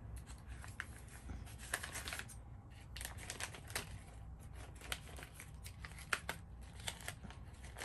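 Packaging being handled and opened: irregular rustling and crinkling with small clicks and crackles.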